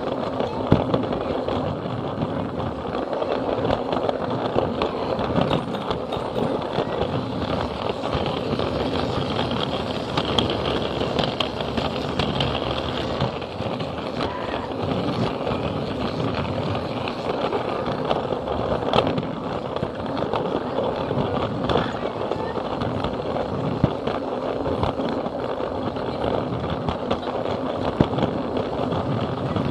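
Plarail battery-powered toy train carrying a camera, running on plastic track, its motor and wheels rattling close to the microphone with occasional clicks, over a crowd talking in the background.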